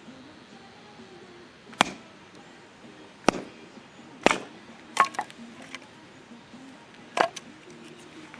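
Firewood being chopped or split for a campfire: five sharp chopping strikes, irregularly spaced a second or two apart.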